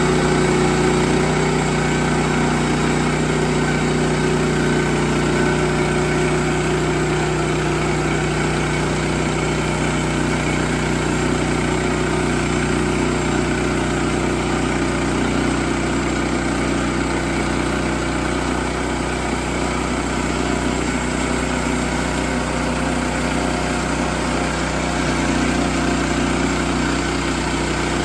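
Band sawmill's engine running steadily at speed.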